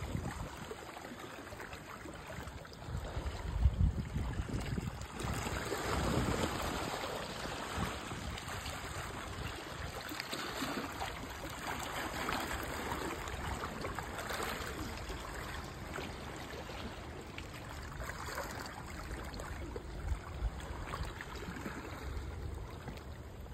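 Gulf water washing and splashing against a rock jetty, swelling every few seconds, with wind rumbling on the microphone.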